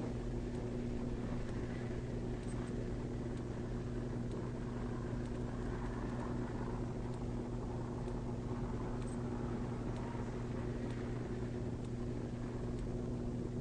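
A steady low machine hum with a few pitched overtones, holding an even level with no rise and fall.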